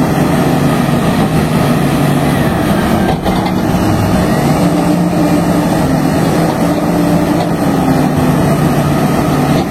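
Komatsu HB365 hybrid excavator's diesel engine running steadily on test after a turbocharger repair, with no turbo rubbing noise left: the fault is cured.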